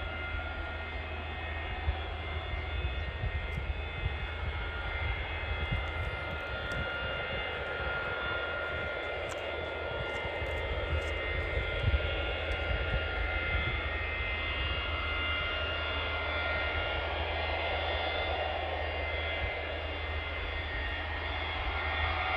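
Boeing 727's three Pratt & Whitney JT8D turbofans running at low power as the jet taxis: a steady high-pitched turbine whine of several held tones over a low rumble, growing slightly louder near the end.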